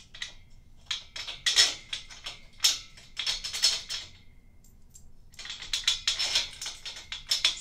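Steel bed-frame hardware clinking: bolts and washers rattling and clicking against the metal support beam as they are fitted by hand. The clicks come in two spells, the first about a second in and the second after a short pause.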